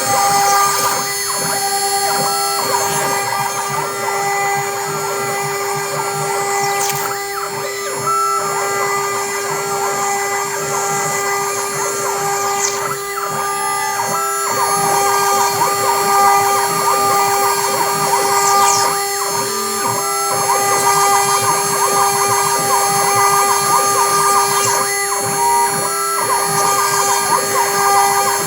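Homemade CNC router machining, with its stepper motors and spindle running. A steady whine runs under shorter higher tones that switch on and off and change pitch every second or so as the axes move, over a constant rattle of cutting.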